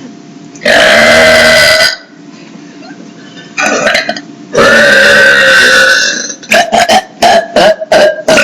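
Girls burping loudly in turn: a long burp of about a second, a shorter broken one, then another long burp of about a second and a half. Near the end come several short, quick bursts in a row.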